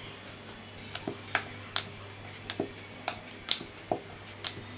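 Wooden rolling pin rolling out poori dough on a hard surface: about ten short, sharp clicks and knocks at irregular intervals as the pin is rolled back and forth, starting about a second in.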